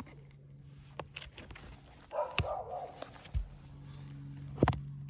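Hand tools clicking, scraping and knocking against asphalt shingles as a roofing nail is worked loose, with a scraping patch about two seconds in and a sharp knock near the end.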